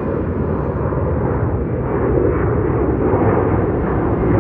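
Boeing 737 jet airliner climbing out after takeoff, its twin turbofan engines at takeoff power giving a steady, deep roar that swells slightly about two seconds in.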